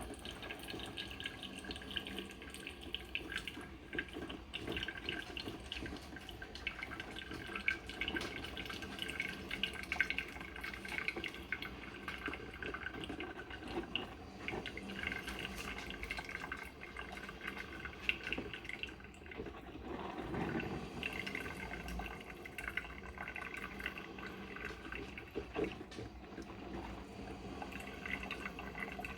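Cuisinart 2-in-1 drip coffee maker brewing on its carafe side: a steady trickle of water with many small crackles and pops throughout.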